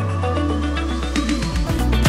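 Electronic background music in a build-up: a held bass note under a slowly rising sweep, with a quick run of drum hits about a second in.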